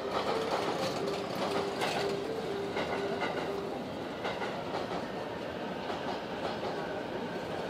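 JR East E233-7000 series commuter electric train running at speed, its wheels clacking over rail joints. A broken whining tone sounds through the first half and stops about four seconds in.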